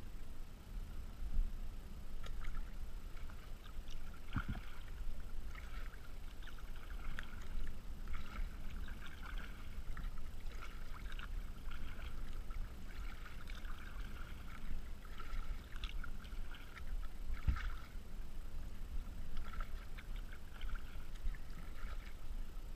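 Kayak paddling: water splashing and dripping off the paddle blades in irregular patches with each stroke, over a steady low rumble, with a few dull knocks about four and seventeen seconds in.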